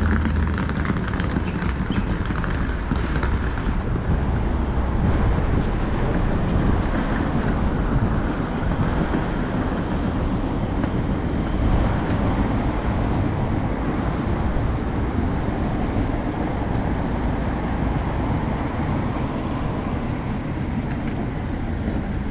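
Busy city street ambience: steady road traffic passing on the street beside the pavement, a continuous low rumble of engines and tyres.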